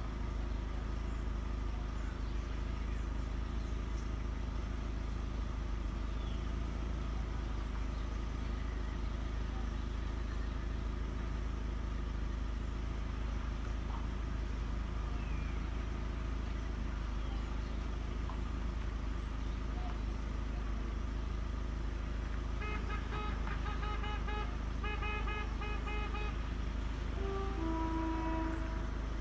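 Steady low hum of an idling car heard from inside its cabin. About three-quarters of the way through, a few seconds of rapid beeping tones come in, then a short run of falling notes near the end.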